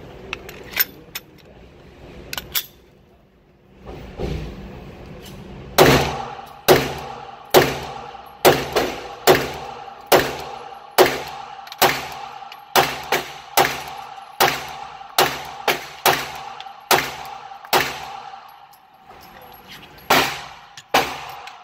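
A few clicks of handling, then a 9mm Glock pistol (a custom Glock 17) firing a long string of about seventeen shots, a little under a second apart. The string stops and two more shots follow near the end.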